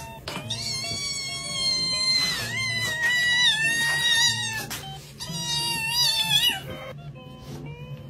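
Kitten mewing in about three long, high-pitched cries whose pitch wavers, stopping shortly before the end, over soft background music.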